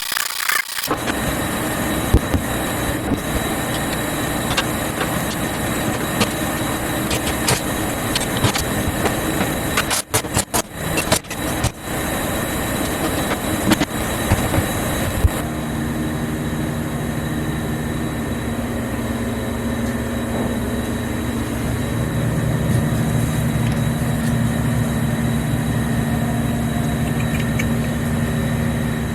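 Steady noise from a shop heater, with a thin high whine and scattered knocks and clatter from tearing out an old boat cabin bench; about halfway a deeper, steady hum joins in.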